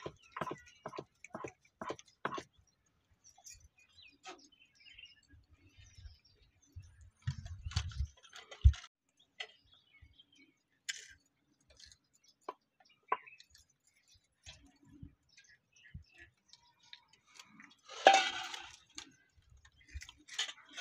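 Soaked rice being ground to paste by hand on a flat grinding stone with a stone muller. Glass bangles clink with the strokes, at first in a quick run of about four clicks a second, then in scattered clicks. There is a single heavy knock about nine seconds in, and a brief scraping burst near the end.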